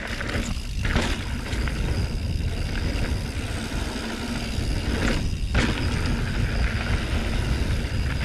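Mountain bike riding fast down dirt singletrack: wind rumbling on the bike-mounted camera microphone over the noise of tyres on dirt and the bike's parts rattling, with louder knocks over bumps about one and five seconds in.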